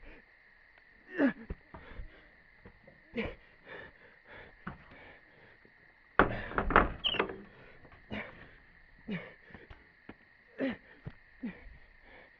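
A person's short, strained breaths and gasps, one every second or two, with a louder jumble of sound about six seconds in.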